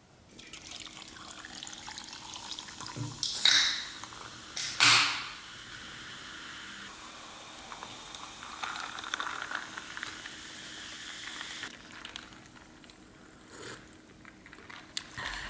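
Coca-Cola poured from a can into a glass of ice, fizzing with a steady hiss that stops about twelve seconds in. Two loud, sharp sounds come about three and five seconds in.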